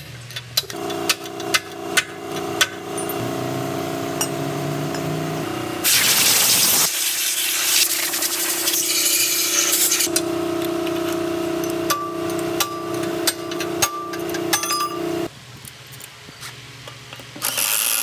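Sharp metal-on-metal knocks as a bearing is driven loose inside a steel gearbox housing, with clinks of the steel parts. There is a loud one-second noisy burst about six seconds in, and a pneumatic impact wrench runs in short bursts near the end. Steady background music plays underneath.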